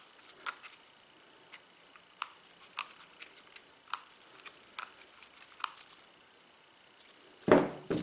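Faint, irregular metal clicks of a screwdriver bit working a small screw in a stainless steel multitool bracelet link, followed near the end by a louder clatter of metal knocking on metal and the table.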